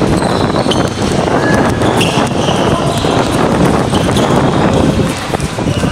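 Basketball game in play: the ball bouncing on the court, players' running footsteps and occasional brief shoe squeaks, with many short knocks over a steady background din.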